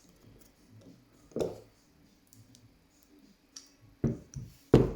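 Tension tool and pick wire clicking and tapping in an Era 5-lever padlock while its levers are picked: faint scattered ticks, a sharper click about a second and a half in, and three close clicks near the end, the last the loudest.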